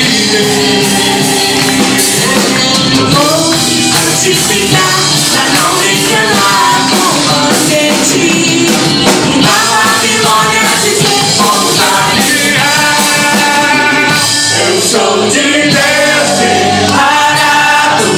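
Christian worship song with singing over a full band, loud and continuous.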